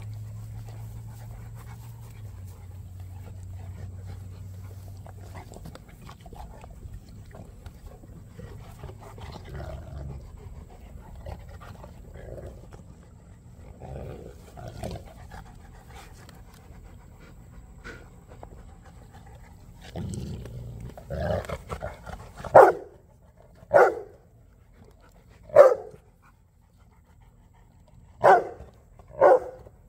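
Large dogs playing and scuffling together on grass, with low, scattered sounds of their play. About two-thirds of the way through, one dog starts barking: five loud, sharp barks a second or two apart.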